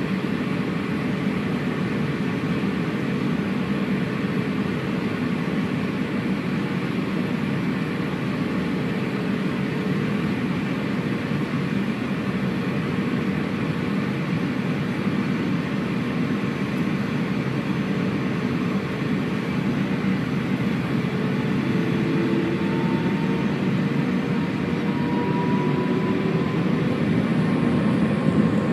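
Airbus A350-900 cabin noise: a steady rumble from the engines and air system. About 22 seconds in, a rising whine begins as the Rolls-Royce Trent XWB engines spool up for take-off, and it grows louder near the end.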